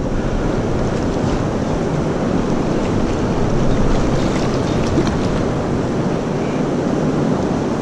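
Fast, churning river water rushing steadily.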